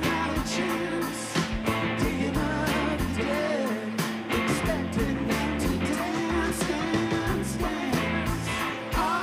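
Indie rock band playing live: electric guitars and drums with a male lead vocal singing over them.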